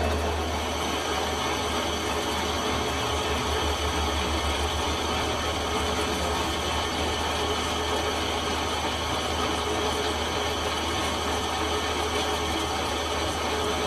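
Metal lathe running with a steady mechanical hum and a strong low drone, unchanging throughout.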